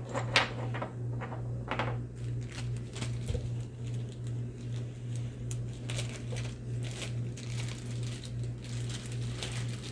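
Light clicks and clinks of small RC differential parts being handled and fitted, several close together in the first two seconds and then sparser. Under them runs a steady low hum that swells and fades about every two-thirds of a second.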